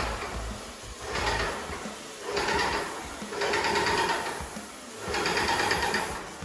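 A small electric power tool running in about five bursts of roughly a second each, starting and stopping.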